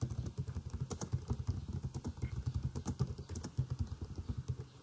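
Typing on a computer keyboard: a quick, uneven run of key clicks that stops shortly before the end.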